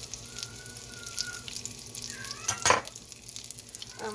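Chaffle batter sizzling and crackling on the hot plates of a Dash mini waffle maker, with a brief louder sound a little past the middle.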